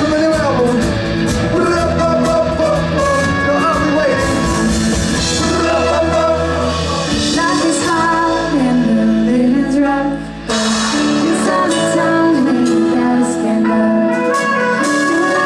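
Live pop band playing, heard from the audience in a concert hall: singing over acoustic guitars and drums. The sound breaks off and changes abruptly about ten seconds in.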